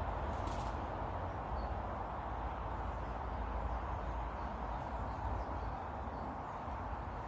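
Steady outdoor background noise, a low rumble and hiss, with a few faint, brief bird chirps and a single click about half a second in.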